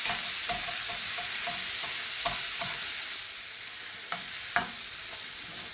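Onions and red peppers sizzling steadily in a frying pan while a wooden spoon stirs tomato paste through them, with a few sharp knocks and scrapes of the spoon against the pan.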